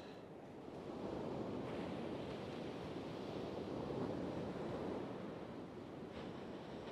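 Sea waves breaking and washing on a shingle beach, swelling about a second in and again around four seconds, with some wind on the microphone.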